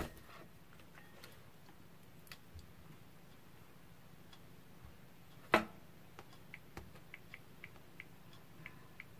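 Faint handling noise from a phone in a plastic phone holder: one sharp click about halfway through, then a run of light ticks, about four a second, near the end.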